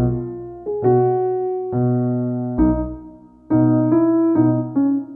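Background piano music: notes and chords struck about once or twice a second, each left to ring and fade.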